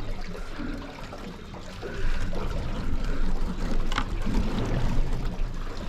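Water splashing and trickling around a small boat drifting at sea, getting louder about two seconds in, with a sharp click about four seconds in.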